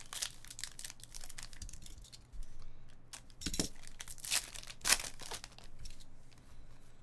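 Foil trading-card pack wrappers being torn open and crinkled in the hands. The rustling is irregular, with louder sharp rips about three and a half and five seconds in.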